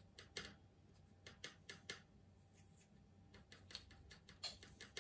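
Faint, irregular short scratchy strokes of a small applicator dabbing and brushing weathering powder onto a model railway tunnel portal.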